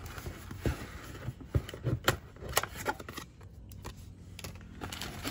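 Hands handling a cardboard trading-card box and lifting foil booster packs out of it: a string of light, irregular taps, scrapes and rustles, with a few sharper clicks around the middle.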